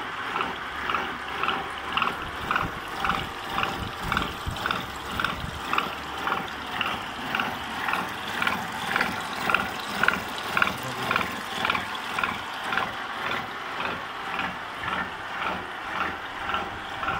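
No. 2 universal milling machine cutting helical gear teeth into a gear shaft with a disc cutter, coolant running over the cut. A steady machining noise pulses evenly, about twice a second.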